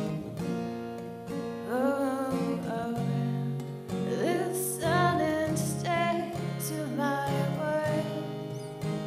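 A woman singing a slow song live, accompanying herself on a strummed acoustic guitar. The guitar chords run throughout, and her voice comes in about two seconds in with held, wavering notes.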